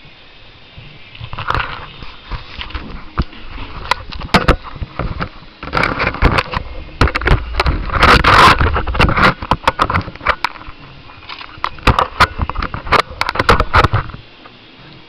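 Handling noise from fingers rubbing and tapping on the camera body near its microphone: irregular scraping and rustling broken by sharp clicks, densest and loudest about eight seconds in.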